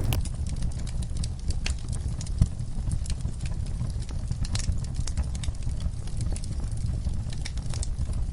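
Fire in a fireplace crackling, with scattered sharp pops over a steady low rumble.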